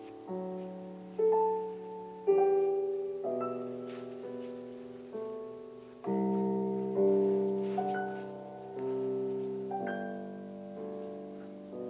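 Soft background piano music: chords and single notes struck every second or so and left to ring and fade.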